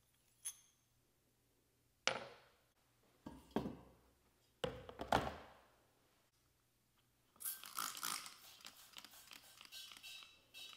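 Metal lantern parts being handled: a light ringing tink, then three knocks about a second apart, then a run of rattling and clinking from about seven seconds in.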